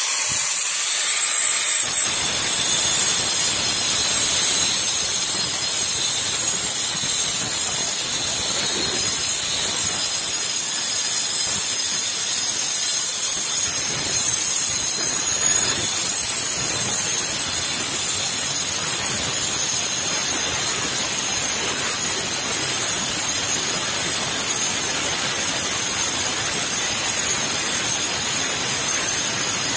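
Angle grinder with a GRAFF Black Professional diamond-coated steel disc cutting through thin sheet steel: steady, loud grinding hiss under a high whine that grows stronger about two seconds in.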